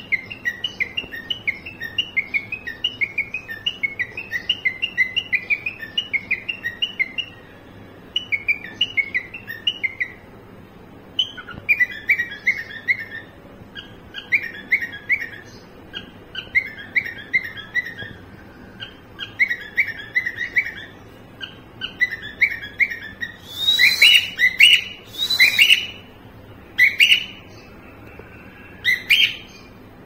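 Cockatiel singing its car-horn imitation: a fast run of repeated chirps, about five a second, then shorter groups of chirps a second or so apart. In the last third come a few louder, harsher calls.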